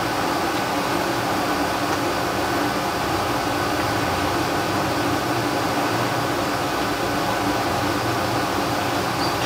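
Steady rush of air and hum from a fan running, unchanging throughout.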